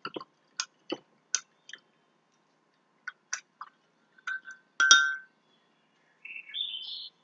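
Paintbrush being cleaned in a water cup: a string of light taps and clinks, the loudest about five seconds in with a brief ring. Near the end comes a short chirp that steps up in pitch.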